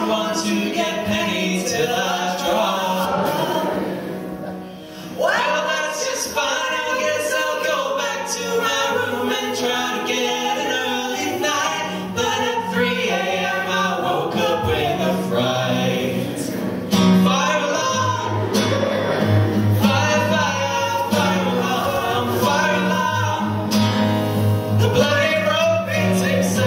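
A duet sung live with instrumental accompaniment, a comic song, with a short lull about four seconds in before the singing comes back in strongly.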